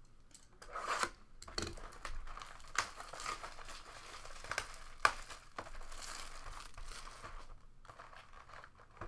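Plastic shrink wrap being torn off a sealed trading-card box and crumpled in the hands: continuous crinkling with sharp crackles, one loud snap about five seconds in.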